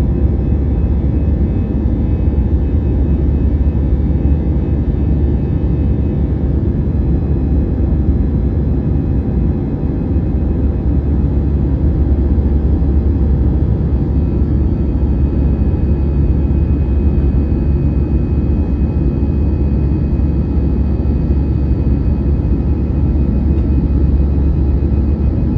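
Airbus A320 jet engines running at takeoff power: a steady, deep rumble with faint, even whining tones above it, holding level throughout.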